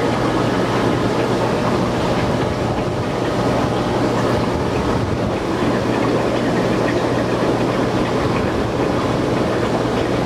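Steady low hum with a continuous rushing, bubbling noise from the tank's aeration: an air pump driving the sponge filter in a fish-fry rearing tank.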